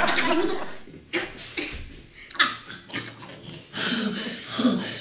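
A man's short wordless vocal sounds, grunts and hums, with a few short sharp mouth or breath noises between them.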